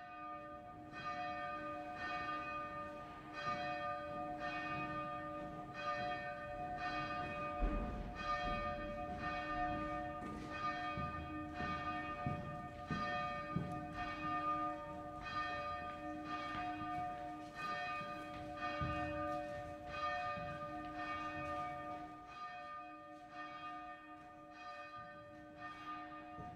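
A monastery church bell tolling, struck roughly once every second and a bit, each stroke ringing on into the next.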